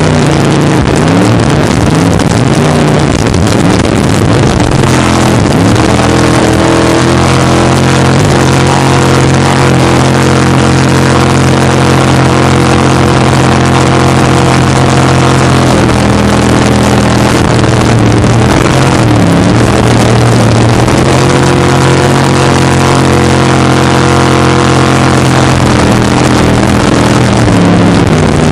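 Racing jet boat's engine running hard at high revs, heard on board over water and wind noise; the revs dip and climb back again several times.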